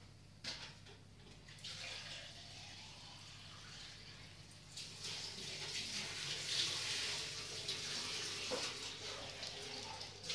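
Westiepoo puppy mouthing and rubbing against fabric right at the microphone: a rustling, wet-sounding scuffle that grows louder about five seconds in.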